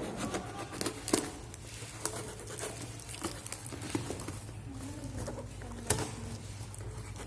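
Hands handling the packaging of a replacement phone screen: scattered light clicks and taps, the sharpest about a second in and near six seconds, over a steady low hum.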